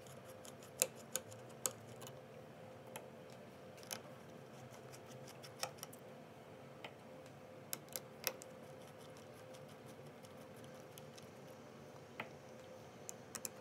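Faint, scattered small metallic clicks and taps from a precision Phillips screwdriver working tiny screws out of the metal shield plate inside an iPhone 6. The clicks come in small groups, several in the first few seconds and a couple near the end, over a faint steady hum.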